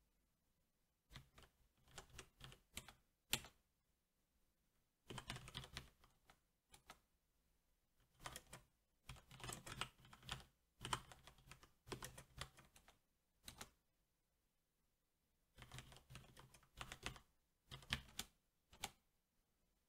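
Typing on a SteelSeries 6Gv2 mechanical keyboard with Cherry MX Black switches: quiet bursts of rapid keystrokes, each run of keys separated by short pauses, with a longer pause of about two seconds after the middle.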